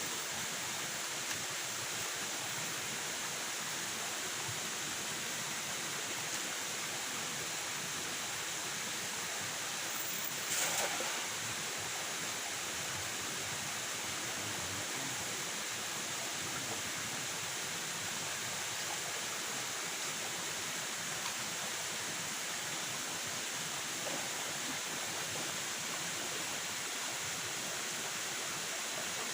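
Steady, even rushing noise of the outdoor surroundings, with one brief louder rustle about ten seconds in.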